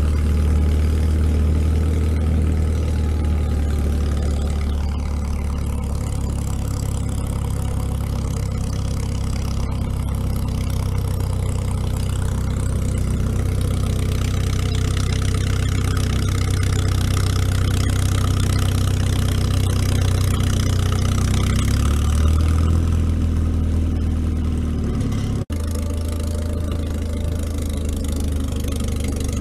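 International Harvester TD-6 crawler tractor's engine running steadily under load as it tows a drag through deep snow, a low even drone throughout.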